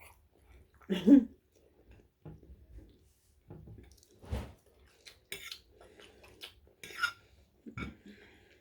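Someone chewing food, with scattered light clicks and clinks of cutlery on a dish. There is a short voiced sound about a second in.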